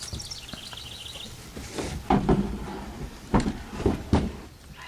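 A brief run of high chirps stepping down in pitch, then several sharp knocks and clunks, the loudest about two and three and a half seconds in.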